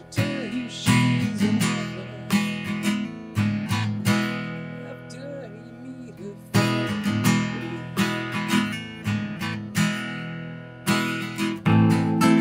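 Orangewood Mason Live acoustic-electric guitar being strummed: chords struck and left to ring, then struck again in a loose rhythm, with a softer stretch of ringing chords in the middle.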